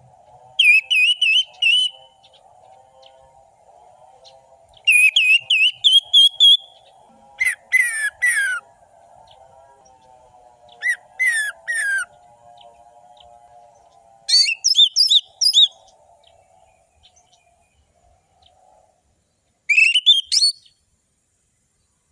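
Orange-headed thrush singing: six short, fast phrases of sharp whistled notes, each about a second long and a few seconds apart, over a faint lower warbling in the background that fades out near the end.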